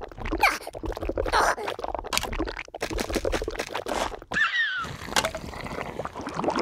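Animated-cartoon sound effects: a busy run of clicks and scrapes over a low rumble, with two short squeaky gliding cries, one near the start and one about four and a half seconds in.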